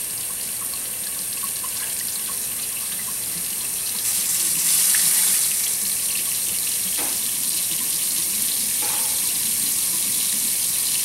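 Water running from a newly installed Moen pull-down kitchen faucet into a sink, in a steady stream. The flow gets louder about four seconds in as the hot-water supply valve is opened alongside the cold.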